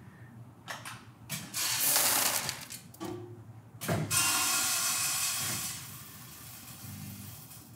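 Precision Fill weighing and filling machine running a fill cycle. A few clicks come first, then a rush as the weighed product is dumped out. A sharp click about four seconds in starts the next fill, and product pours in with a hiss that drops to a quieter flow about two seconds later as the feed slows toward the target weight.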